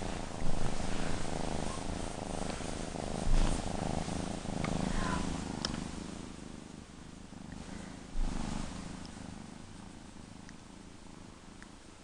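Kitten purring while being stroked, growing fainter over the last few seconds. Three brief low thumps stand out above the purr.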